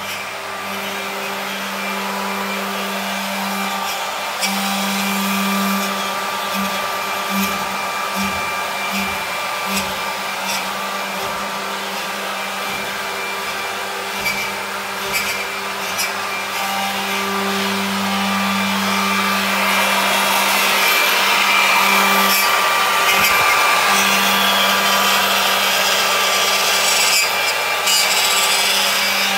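Electric machinery running continuously: a steady whirr and hum with a thin steady whine on top, growing louder and brighter about two-thirds of the way through.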